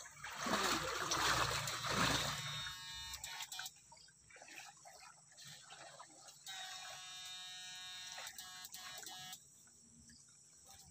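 Water splashing and swirling as a person wades and pushes a net pole through a shallow stream. Then comes a steady electric buzz lasting a few seconds, from the backpack electrofishing (fish-shocking) unit.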